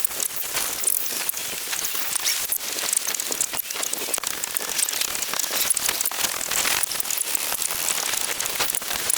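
Water spattering and splashing: a dense, irregular patter of droplets with fine crackling clicks, without letup.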